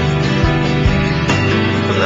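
Music: a guitar-led song with a steady beat.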